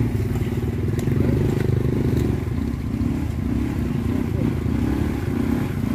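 Small motorcycle engine running at low speed through mud, its note coming in uneven pulses.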